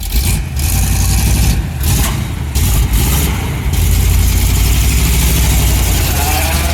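The 1975 Chevrolet C10's engine running, a loud, steady low rumble just after being started.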